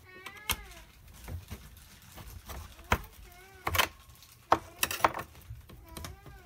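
Steel coil spring inside a centrifugal casting machine being pushed and slid along by hand tools: scattered sharp metal clicks and knocks, with three short squeaks that bend in pitch.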